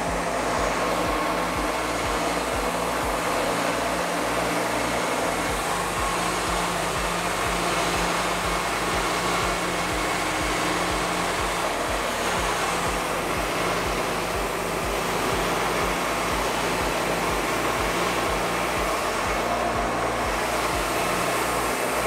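Wood-Mizer LT40 Wide hydraulic sawmill running steadily, its engine and band blade sawing lengthwise through a monkey pod log.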